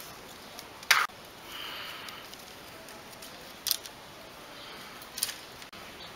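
Blue plastic cord being pulled and woven through the bamboo slats of a stool frame, with three short scratchy clicks, the loudest about a second in, and a soft rustle of cord drawn through between them.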